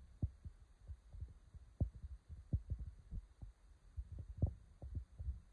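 Wind buffeting the microphone on an open ship's deck: uneven low thumps and rumble, several a second.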